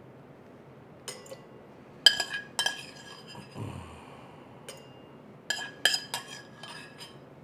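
Metal spoon scraping and clinking against a stainless-steel saucepan and the rim of a large wine glass as sautéed mushrooms are spooned into the glass. The clinks are sharp and ringing and come in two clusters, with a soft low thump near the middle.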